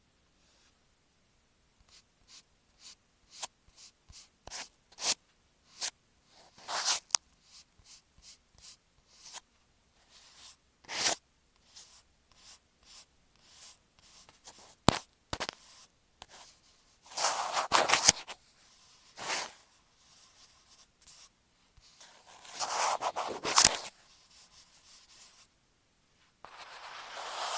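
Masking tape stuck over an Apple EarPods microphone being tapped, scratched and rubbed right at the mic: a run of short crisp taps and scratches, with longer rough rubbing twice, about two-thirds of the way through and again near the end.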